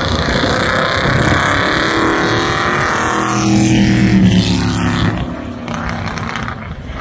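A drag-racing car's engine running hard at full throttle, loudest about four seconds in and then fading as it pulls away.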